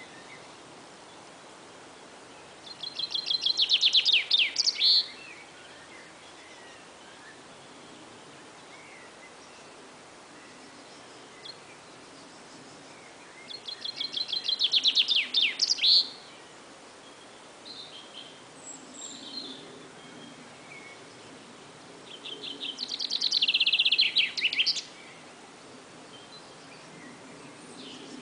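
A songbird singing three times, roughly ten seconds apart: each song is a fast, high trill of rapidly repeated notes that grows louder over about two seconds and ends in a few quick sweeping notes, with a laser-like, futuristic quality.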